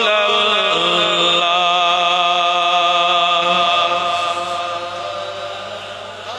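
A man's voice chanting a devotional naat in praise of the Prophet, holding one long sung note for about four seconds before it trails off.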